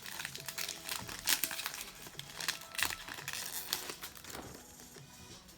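Foil wrapper of a Pokémon card booster pack crinkling and tearing as it is opened, in a run of sharp crackles that thin out near the end. Faint background music plays underneath.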